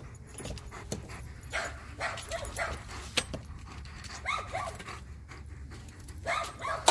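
Husky-type dogs whining and whimpering in short, wavering calls, three times, with panting in between.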